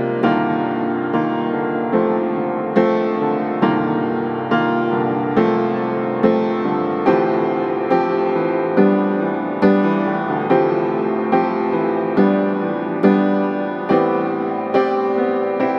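Slow piano music, with notes struck at an even pace of about one a second, each dying away before the next.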